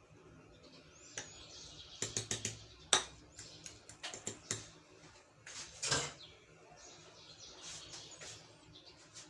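Light clicks and knocks, with a quick run of them about two seconds in, a sharp click about three seconds in and a louder knock near six seconds.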